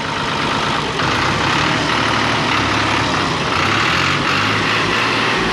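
Diesel engine of a New Holland (Fiat) 480 Special tractor running, freshly serviced. It gets louder about a second in, then runs steadily.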